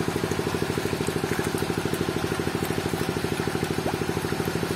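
A small engine idling steadily, with an even pulse of about a dozen beats a second.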